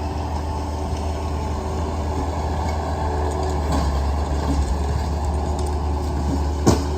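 Diesel engine of heavy earthmoving equipment running steadily, with a single sharp clank near the end.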